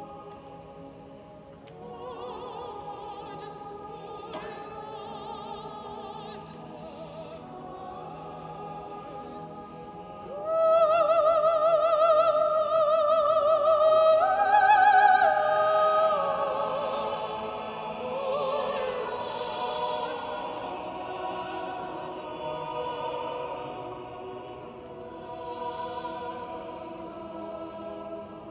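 Mixed church choir singing a slow sacred anthem, with a soprano soloist. About ten seconds in, a single soprano voice with wide vibrato rises loudly above the choir and holds long high notes for several seconds before settling back into the choral sound.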